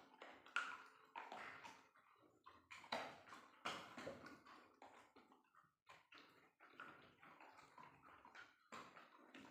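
Treats being eaten: a quick, irregular run of crunches, smacks and clicks of chewing.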